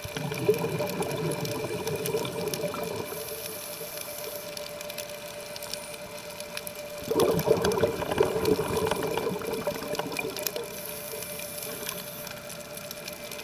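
Underwater: scuba exhalation bubbles in two bursts, one at the start lasting about three seconds and a louder one about seven seconds in, over the steady hum of a diver's small electric underwater scooter.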